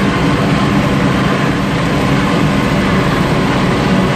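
Tractor engine running steadily, heard from inside the cab as an even, unbroken drone.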